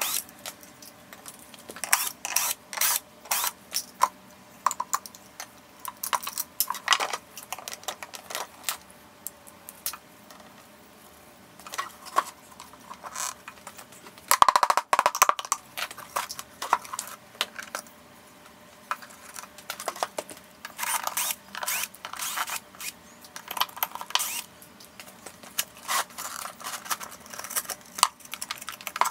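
Irregular clicks and metallic clinks of hands working on small parts with tools, with a louder ringing clatter about halfway through.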